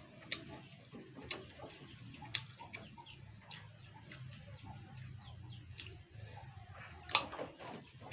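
Close-up chewing and crunching of fruit rujak, with irregular sharp mouth clicks over a low steady hum.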